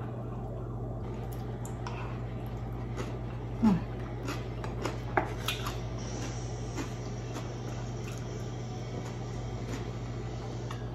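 Close-up eating sounds of a person chewing grilled squid and rice: wet, squishy chewing and lip smacks with scattered small clicks, busiest in the first half, and a brief louder mouth sound about four seconds in. A steady low hum lies underneath.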